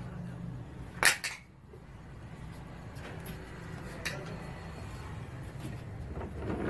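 A sharp double click or knock about a second in, followed by a couple of fainter clicks, over a low steady hum.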